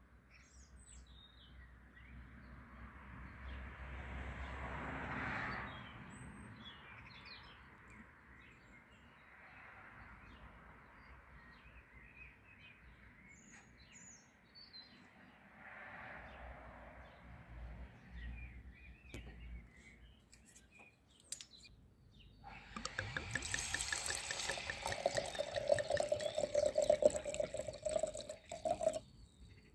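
Birds chirping faintly over a soft rushing noise that swells and fades. About 23 seconds in, white wine is poured from a bottle into a glass, a loud splashing pour lasting about six seconds before it stops.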